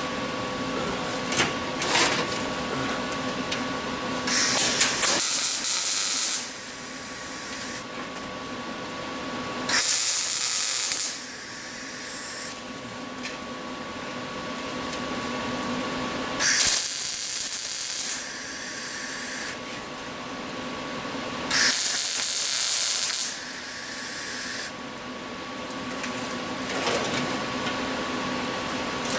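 Welder laying short welds on truck body sheet metal in about four bursts of one to three seconds each, with shorter blips between, over a steady background hum.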